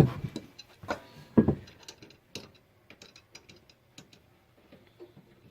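Light metallic knocks and clicks of a homemade pin spanner working on the threaded bushing retainer of a steering rack, just broken loose. A few sharper knocks in the first second and a half, then a run of small, quick ticks.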